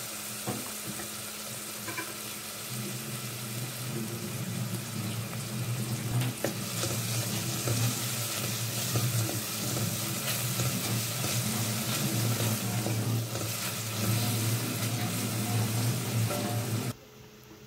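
Sliced onions sizzling in hot oil in a stainless steel pot, stirred with a wooden spatula that scrapes and taps against the pot, over a steady low hum. The sizzle cuts off suddenly near the end.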